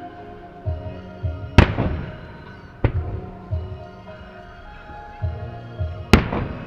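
Aerial firework shells bursting: two loud booms about four and a half seconds apart, with a lighter one between, each trailing off into a rumble. Music with a steady beat plays throughout.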